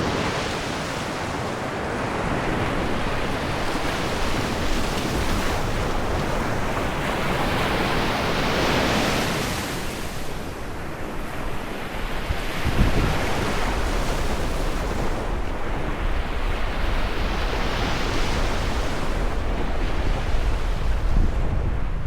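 Sea waves breaking and washing in, a steady rushing that swells and ebbs, with two big surges. From about halfway a low rumble of wind on the microphone sits under the surf.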